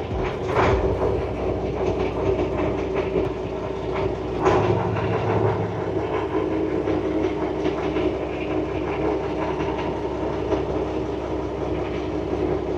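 Houseboat's engine running steadily under way, a constant mechanical rumble.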